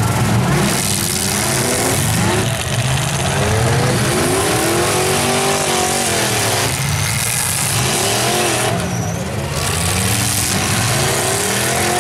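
Several demolition derby cars' engines revving up and down together, their pitches rising and falling over one another as the cars drive and reverse around the dirt arena.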